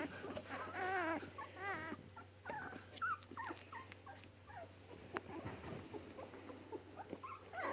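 Three-week-old puppies whimpering and squeaking faintly. A few wavering high whines come about a second in, then scattered short squeaks and small knocks.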